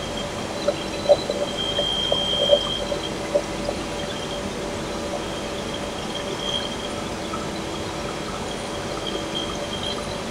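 Compressed air hissing steadily through the pneumatic actuator and Bray Series 6A positioner as the positioner strokes the butterfly valve during its automatic initialization, with a few light clicks in the first few seconds.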